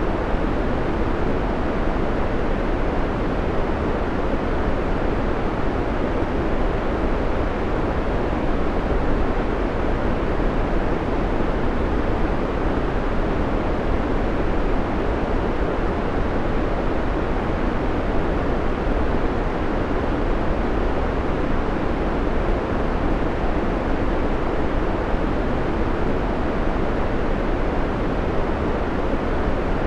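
Steady white noise: an even, unbroken hiss that stays the same throughout, fuller in the low and middle range than in the treble.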